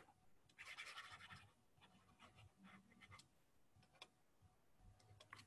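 Near silence: a faint breath-like hiss about a second in, and a few faint clicks.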